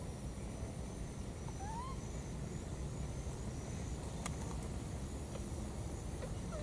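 A baby macaque giving two short squeaky calls, the first rising in pitch about one and a half seconds in and the second near the end, over a steady low rumble and faint thin high tones.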